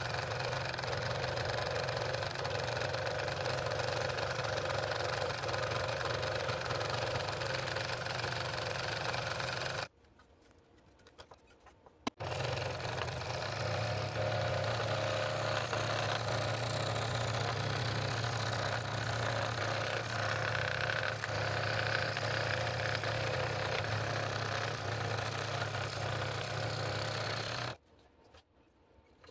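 Scroll saw running, its blade cutting a wooden ring blank along a pattern line: a steady machine hum. It stops about ten seconds in, starts again two seconds later, and stops again near the end.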